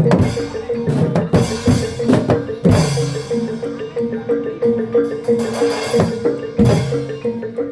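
Javanese gamelan accompaniment for a Barongan Blora dance: rhythmic drum strokes with struck metal instruments over a steady ringing tone, and a few loud crashing hits.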